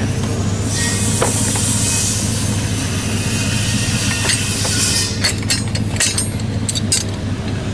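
A vehicle engine idling steadily, with a spell of hiss early on and several sharp metallic clinks in the last few seconds as a steel pipe elevator clamp is fitted onto PVC drop pipe.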